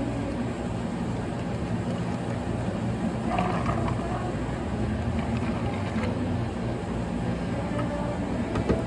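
Water poured from a plastic pitcher over ice into a plastic cup, over a steady low machine hum, with a short knock near the end.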